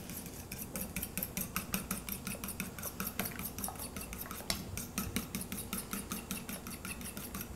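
A fork beating egg and cream in a small stainless-steel bowl: quick, regular clinks of the tines against the metal as the egg wash is mixed.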